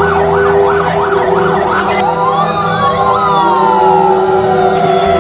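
Emergency vehicle sirens: one in a fast yelp, rising and falling about three times a second, stops about two seconds in. Slower sirens then glide in pitch, one falling steadily toward the end.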